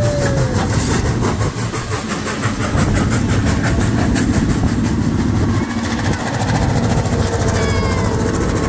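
A passing train: Canadian Pacific steam locomotive 2816 and its tenders rolling by with a steady rhythmic clatter of wheels, then the diesel units behind them passing with their engines running. A few short squeals come near the end.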